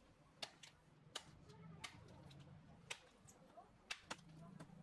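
Near silence: a faint low hum with scattered, irregular faint clicks, about six in all.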